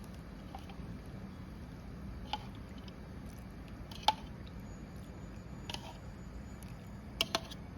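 A few light clicks and taps of kitchen utensils, one about two seconds in, one at about four seconds, and a quick pair near the end, over a low steady hum.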